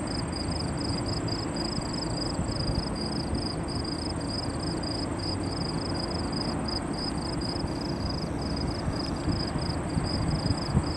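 Insects chirping in an even rhythm, about two to three pulses a second, with a steady high-pitched whine above them and a continuous low outdoor rumble underneath.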